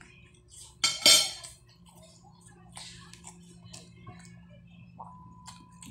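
Eating sounds of a person taking rice and greens by hand: a loud mouth noise about a second in, then quiet chewing with small scattered clicks and taps.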